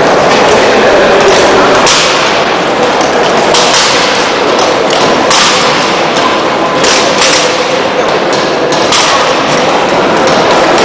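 Drill rifles being spun, slapped and caught by a drill team: irregular sharp smacks and thumps, several in a few seconds, over a steady background din.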